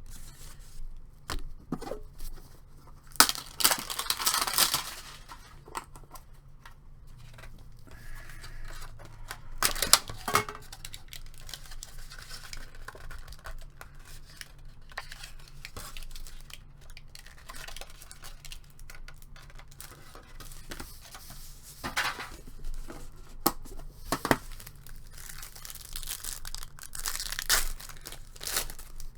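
Trading-card pack wrappers being torn open and crinkled while the cards are handled, in irregular crackling bursts, loudest about four seconds in, around ten seconds, and again near the end.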